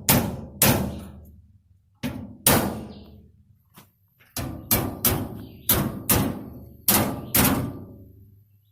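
Hammer striking metal, about eleven sharp ringing blows: a few near the start, then a quicker run of blows from about four seconds in.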